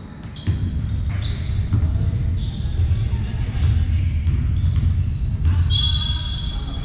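Basketball game play on an indoor court: the ball bouncing, players' feet on the floor and indistinct voices, with a high squeak near the end.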